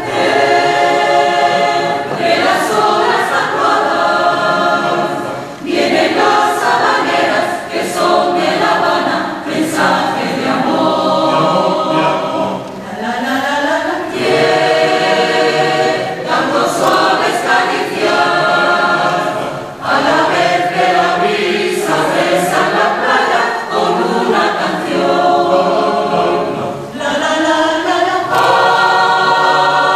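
Mixed choir of men's, women's and children's voices singing a habanera a cappella, in phrases of a few seconds with short breaks for breath.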